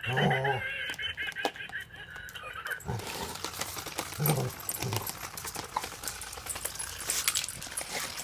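A dog's short, low grumbling vocalizations, once at the start and again about four seconds in, answering a giggle-ball toy whose electronic giggle warbles through the first second or two. From about three seconds in come scraping and clicking as the dog mouths and pushes the plastic ball across concrete.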